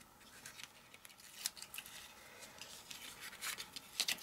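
Cardstock being folded and creased by hand, with light paper scrapes and small clicks, a little louder near the end.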